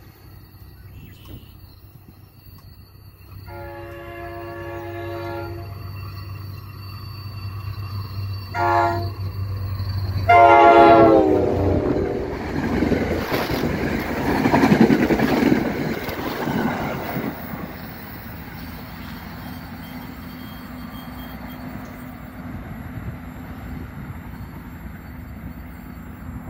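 Metro-North F40PH-3C diesel-hauled commuter train approaching and passing. Its horn sounds several blasts: a long one, a short one, then a long loud one that drops in pitch as the train reaches the crossing. The locomotive's low drone builds underneath, the coaches and wheels rumble past, and then the sound eases to a lower steady rumble.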